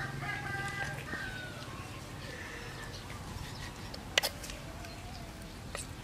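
Kitchen knife working limes over a wooden mortar: one sharp click about four seconds in and a smaller one near the end. Faint animal calls sound in the background during the first second.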